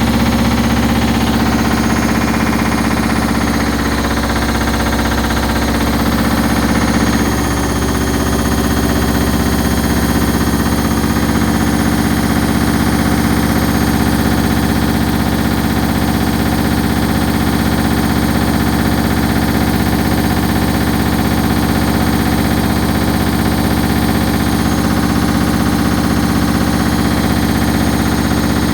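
Hoover HLW585DC washer dryer in its final high-speed spin with a full load: a steady motor whine and drum running, shifting slightly about seven seconds in. The machine is holding its spin speed down rather than reaching the full 1200 rpm.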